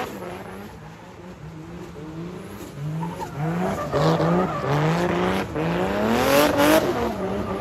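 Drift car's engine revving in short, repeated rising sweeps as it is held on the limiter through a slide, with tyres screeching. It grows louder from about three seconds in.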